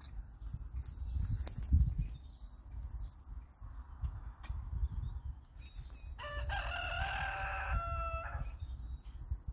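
A rooster crows once, a single call of about two seconds starting a little past the middle. Under it are the dull thuds of a garden hoe chopping into loose soil, and a small bird chirps repeatedly in the first few seconds.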